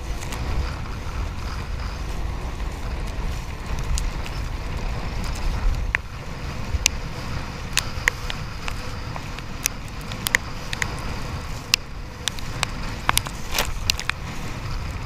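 Kiteboard skimming over choppy water, heard from a camera on the kite's control bar: a steady rumble of wind buffeting and water rush, with scattered sharp ticks through the second half.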